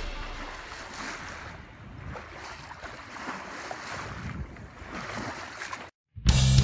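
Wind buffeting the microphone over waves washing on open sea, heard from a sailboat under way. Background music fades out in the first second, and after a short dropout a loud drum-driven rock track comes in abruptly near the end.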